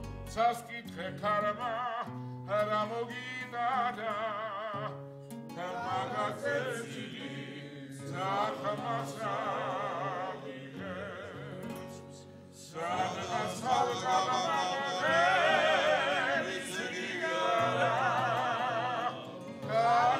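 A song: singing with strong vibrato over steady sustained accompaniment. It grows louder and fuller about two-thirds of the way through.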